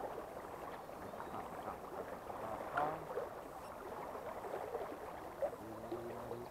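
River water flowing over shallows, a steady rushing and burbling noise.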